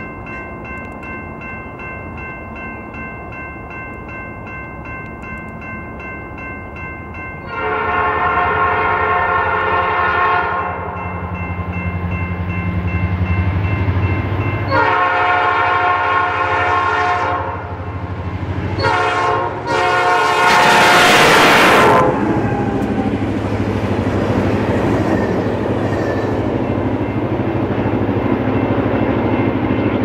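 Railroad crossing bell ringing, then a locomotive air horn sounds the grade-crossing signal: two long blasts, a short one and a final long one, loud enough that the microphone distorts on the last blast. The locomotive's engine rumbles in underneath, and the train rolls past after the horn.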